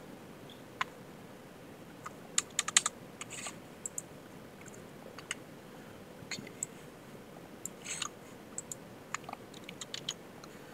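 Scattered keystrokes on a computer keyboard: a quick run of several clicks about two and a half seconds in, then single taps every second or so.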